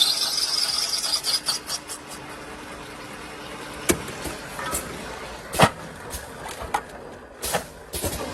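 Plastic pipe cutting machine running with a steady hum. A high hiss fades out in the first two seconds, then a few sharp knocks and clatters come about four, five and a half and seven and a half seconds in.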